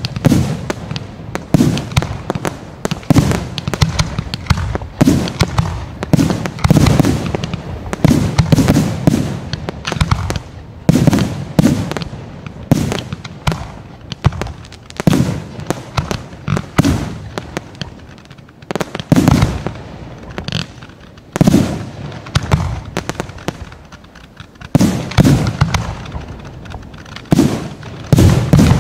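Aerial fireworks display: shells bursting one after another in quick succession, a dense run of sharp bangs and deep booms with hardly a pause.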